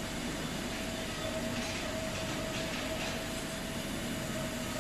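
Vertical CNC machining center milling a workpiece under flood coolant: the spindle and cutter run with a steady faint tone over an even hiss of coolant spray and cutting.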